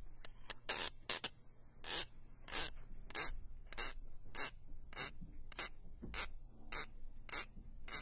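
Short scraping strokes repeated at an even pace, about one and a half a second.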